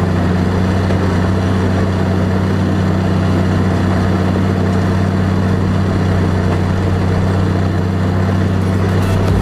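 An engine idling steadily, with an even low hum that does not change.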